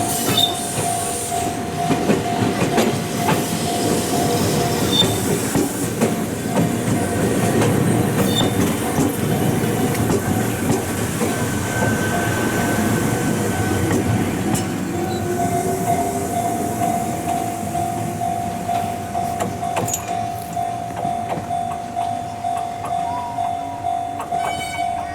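Ohmi Railway electric train running past, with a steady rumble and the clatter of wheels over rail joints. A steady high tone sounds for much of the time, dropping out for a while in the middle.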